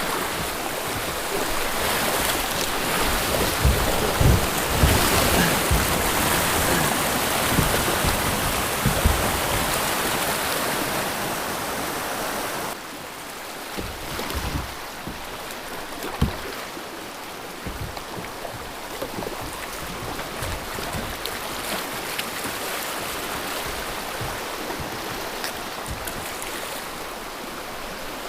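Flowing river water, a steady rushing hiss of current, with scattered low thumps in the first half. The level drops suddenly a little before halfway and the rushing goes on quieter.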